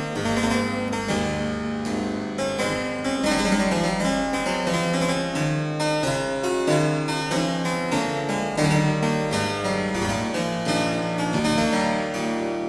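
Harpsichord music: a steady run of quick plucked notes over a moving bass line.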